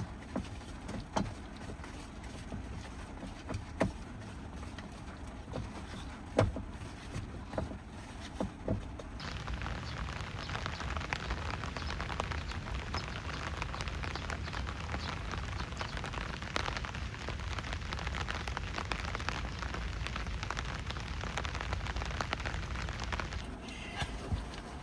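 Heavy rain pattering steadily, growing much denser and louder about nine seconds in and easing again near the end. In the quieter stretch, scattered light knocks and clicks sound over it.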